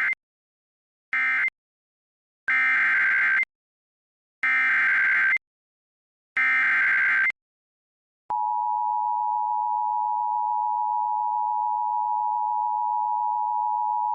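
Emergency Alert System audio. It begins with short end-of-message data bursts that close the previous alert. Then come three one-second SAME header bursts, warbling data tones about two seconds apart. About eight seconds in, the steady two-tone EAS attention signal starts and holds, announcing the next warning.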